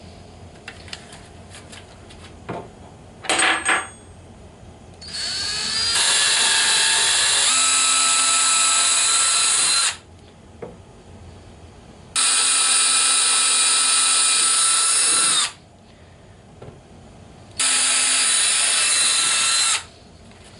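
Electric drill boring small pilot holes with a 7/32-inch bit. Two brief trigger blips, then three steady runs of the drill motor, the first spinning up over about a second and lasting about four seconds, the next two about three and two seconds, with pauses between.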